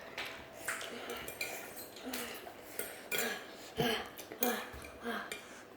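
Eating utensils clinking and scraping against a bowl while noodles are eaten: a string of short clicks, the loudest a little past the middle.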